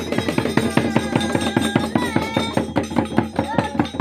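Bihu dhol drumming in a fast, steady rhythm, with a high gliding melody line above the beats.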